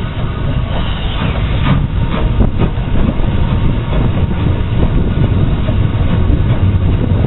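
A steam freight train hauled by the LSWR Beattie 2-4-0 well tank 30587, on the move and heard from the brake van coupled right in front of the locomotive: a steady, loud running noise, with a few sharp clicks about two seconds in.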